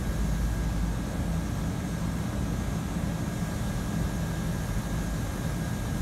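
Carrier packaged heat pump running steadily in heat mode: an even hum from the compressor and outdoor fan with a rush of air.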